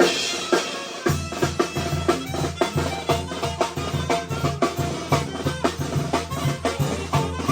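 A village brass band playing with drums. A crash opens the passage, the bass drops out for about a second, and then the steady bass-and-drum beat comes back in under the melody.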